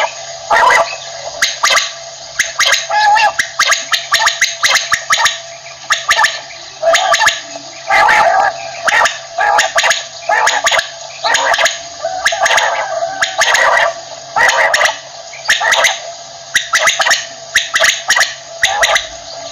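Common quail (batair) calling over and over: short, clicky bursts of calls coming about once a second.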